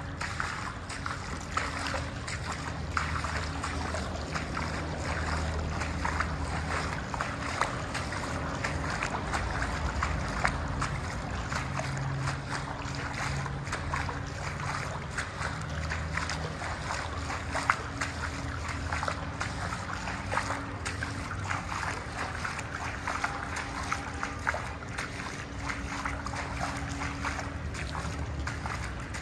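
Steady low rumble and hiss inside a concrete tunnel, with a faint hum that comes and goes and many small ticks and scuffs throughout.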